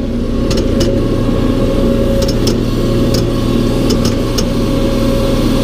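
Tractor-driven hay grinder running steadily, with its drive chain jumping on the sprocket: several sharp, irregular clicks over the steady machine noise.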